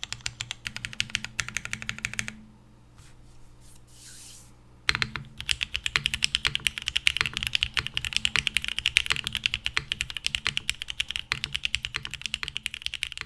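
Typing on a Geonworks Frog TKL mechanical keyboard with stem-lubed Cherry MX Hyperglide Black switches and GMK Tiramisu keycaps on an aluminium plate. Rapid keystrokes stop about two seconds in for a pause of about two and a half seconds, then resume as fast, continuous typing.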